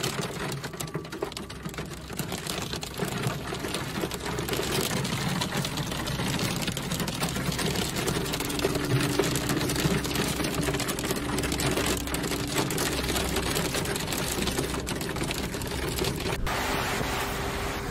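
Hailstones pelting the roof and windscreen of a car, heard from inside the cabin as a dense, fast clatter of small hits. A low steady hum comes in for a few seconds midway.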